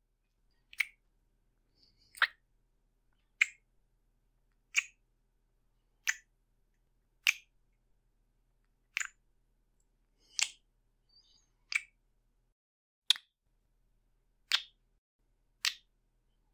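A slow series of kisses: about a dozen short, sharp lip smacks, roughly one every second and a half, with near silence between them.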